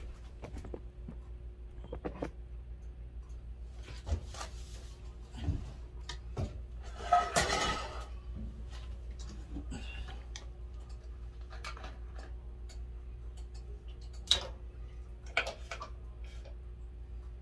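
Cast-iron skillets and a pot being handled on an electric stovetop: scattered clanks, knocks and clicks, the loudest a clatter about seven seconds in, over a steady low hum.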